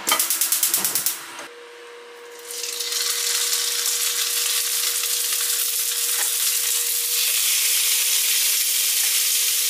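Fish steaks frying in a preheated, oiled cast-iron wok: a steady sizzle starts about two and a half seconds in, as the pieces go into the hot oil, and keeps on. Before it comes a quick run of clicks in the first second.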